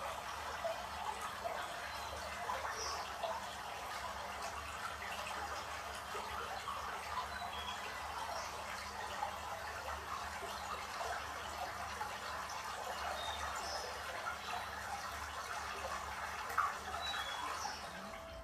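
Steady trickling, running-water sound with small drip-like blips scattered through it, over a faint low hum; it cuts off just before the end.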